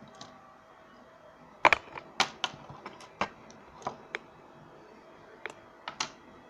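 A string of irregular sharp clicks and taps, about fifteen over four and a half seconds, the loudest pair about a second and a half in.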